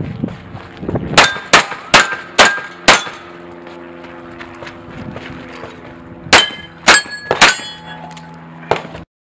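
Pistol shots at steel targets, each hit followed by the ring of a struck plate. There are five quick shots about a second in, then three more a few seconds later and one last shot near the end, after which the sound cuts off abruptly.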